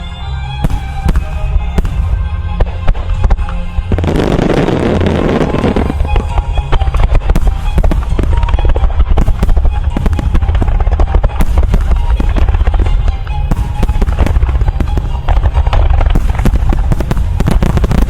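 Music starmine fireworks bursting over a musical soundtrack. A few scattered reports give way, about four seconds in, to a dense rapid-fire barrage of bursts that carries on under the music.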